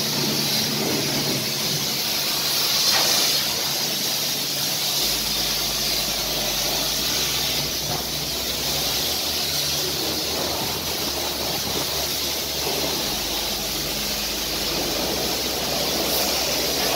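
High-pressure car-wash lance spraying water onto a car, a steady loud hiss with a low hum underneath; it is running at very high pressure.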